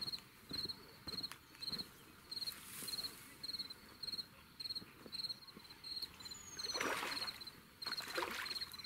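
A cricket chirping steadily: short pulsed chirps repeating about one and a half times a second. About seven seconds in a louder noisy burst cuts across it, just after a thin falling whistle.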